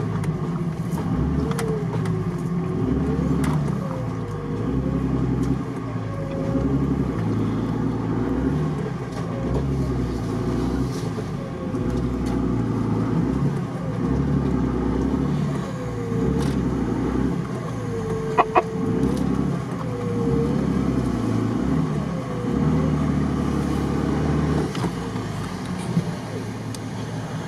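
Off-road 4x4 engine revved hard in repeated surges every couple of seconds, wheels spinning in deep mud, heard through the windscreen from inside another car. A single short sharp sound about two-thirds of the way through.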